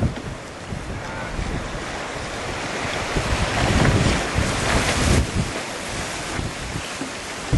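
Strong gusting wind buffeting the microphone: an uneven low rumble under a rushing hiss that swells about four seconds in.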